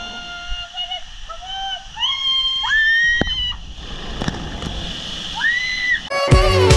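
Girls screaming and squealing, long high held cries that leap up in pitch, while riding a tube down a water slide, with water splashing and sloshing under them. Music starts abruptly near the end.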